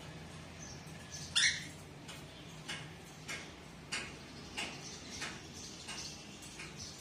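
Cockatiel chirping: a string of short, high chirps about every half second, with one louder, longer call that rises and falls about a second and a half in.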